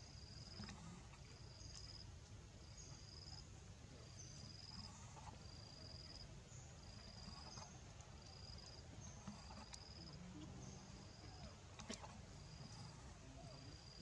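Faint insect chirping: a short high note of steady pitch repeated about once a second, over faint low background noise.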